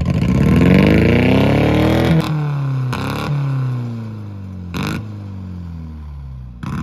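Old sedan's engine revved hard, its pitch climbing for about two seconds and then falling away slowly. Several short sharp cracks come as the revs drop.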